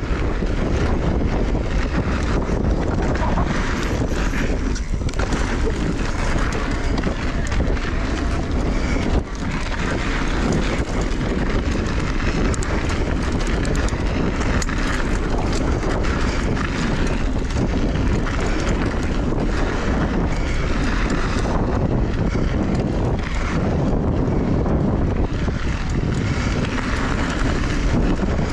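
Mountain bike rolling fast on a dry dirt trail: steady wind rush on the camera microphone over tyre noise, with frequent rattles and knocks from the bike over bumps.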